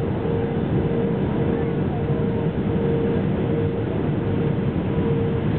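Steady cabin noise inside an Airbus A319-132 on final approach, made by its IAE V2500 engines and the air rushing past the fuselage, with one steady mid-pitched tone over the low rumble.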